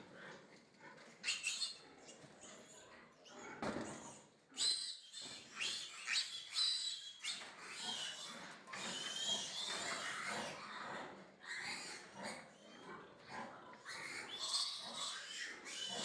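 Piglet squealing over and over as it is handled and restrained on its back for castration, with a few knocks from the handling before the squeals start.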